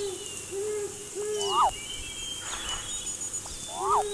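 Owls hooting: a series of short, low hoots, several in the first second and a half and another near the end. Two higher rising-and-falling calls, about one and a half seconds in and near the end, and thin high chirps sit above them.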